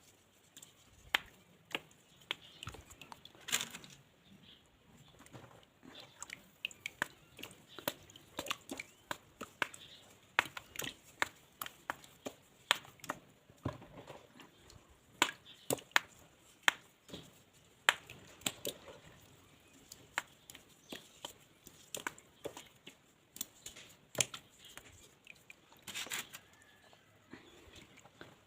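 Dried mud crunching and crumbling as it is crushed: a rapid, irregular run of sharp crackles and snaps, some much louder than the rest.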